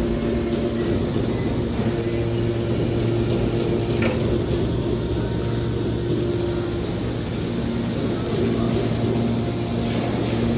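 Metal baler machinery running: a steady mechanical hum with noise and a faint knock about four seconds in.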